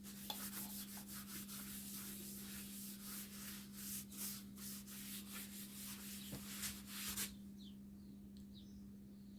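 A cloth rubbing oil finish onto a walnut wooden box in quick repeated strokes, which stop about seven seconds in, over a steady low electrical hum.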